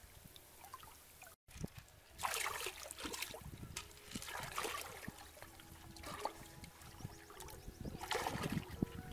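Shallow pond water sloshing and splashing in several short surges as hands grope and stir under the surface.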